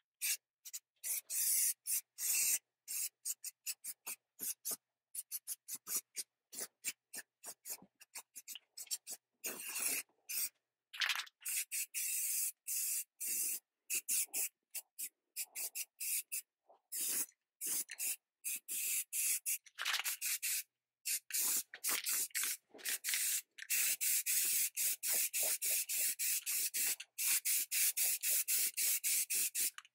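Spray paint hissing from a nozzle in many short bursts with abrupt gaps between them, some bursts longer near the end, with a faint whistle running through the hiss.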